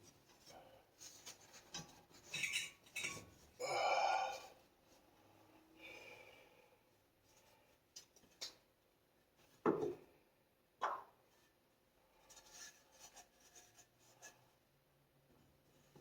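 Scattered handling noises of work on plumbing: light clinks and rubbing, a rasping scrape about four seconds in, and two sharp knocks about ten and eleven seconds in.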